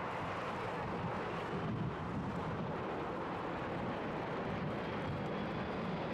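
Large jet airliner's engines, a steady rumble.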